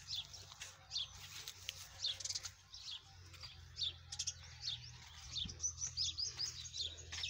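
Small birds chirping: short downward-sliding chirps about once a second, quickening into a rapid run of chirps a little past halfway, over a steady low hum.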